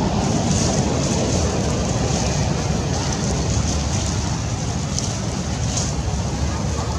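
Steady outdoor rumble and hiss, typical of wind buffeting the microphone, with no clear animal calls.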